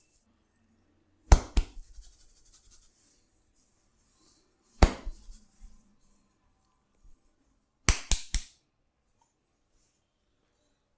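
Sharp hand slaps of a barber's head and body massage: two quick ones, a single one a few seconds later, then three in quick succession.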